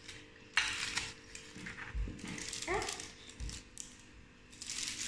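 Plastic piping bag crinkling and rustling in a few short bursts as it is squeezed and handled, with a brief rising squeak about halfway through.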